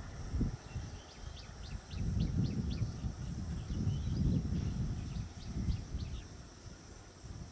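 Birds chirping in quick runs of short, high, falling notes over an uneven low rumble of wind gusting on the microphone; the wind rumble is the loudest sound.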